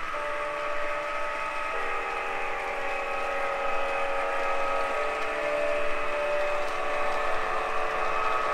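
O scale model train running: the MTH ES44AC locomotive and its cars on the track, a steady mix of tones that shifts in pitch twice, about two and five seconds in.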